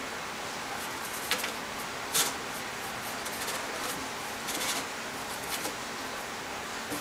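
A Ragdoll cat's paws scratching and scraping at the cardboard inside a box, after a toy hidden there, in a string of short scratchy bursts; the loudest comes about two seconds in. A steady hiss lies under it.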